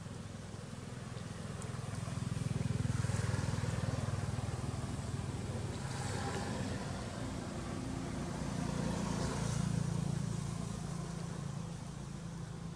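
A motor vehicle's engine running off-picture, a low hum that swells twice and fades toward the end.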